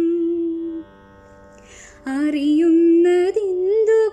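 A woman's singing voice, reciting a Malayalam poem in a sung style, holds one long steady note that fades out just under a second in. After a soft pause with a breath, she resumes singing about two seconds in, the pitch gliding and ornamented.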